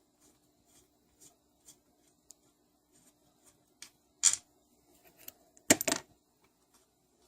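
Small metal parts and hand tools being handled on a workbench during an engine teardown: light scattered clicks, a sharp clink about four seconds in, and a short clatter just before six seconds.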